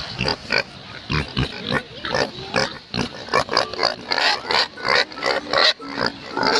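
Pigs grunting and squealing in a fast, irregular string of short calls.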